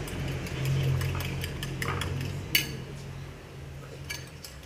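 Metal spoon clinking against a ceramic bowl of beaten eggs: a few irregular clinks, the sharpest about two and a half seconds in, over a steady low hum.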